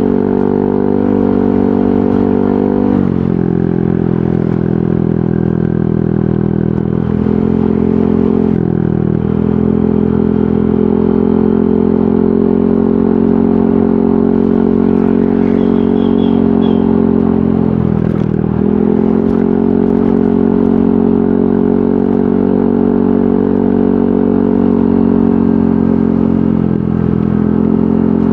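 Yamaha NMAX 155 scooter's single-cylinder engine running through an aftermarket VMAX Onyx muffler while riding, a steady exhaust note. The note dips in pitch and picks up again about four times.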